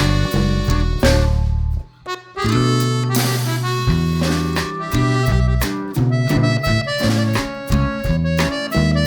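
Instrumental music without vocals: a melody over a bass line, dropping out briefly about two seconds in.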